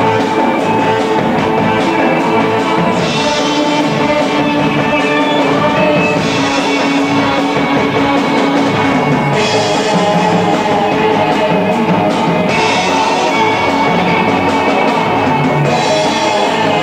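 Live band playing rock music with drum kit and guitar, the drummer using soft mallets. A bright high shimmer comes in and drops out roughly every three seconds over held instrument tones.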